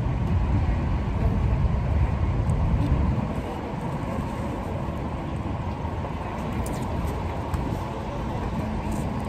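Outdoor background noise: a steady low rumble with no distinct events, easing off a little about three seconds in.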